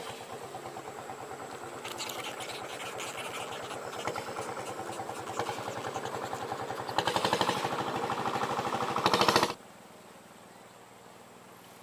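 Small engine running with a rapid, even putter that grows louder, then cuts off abruptly about three-quarters of the way through.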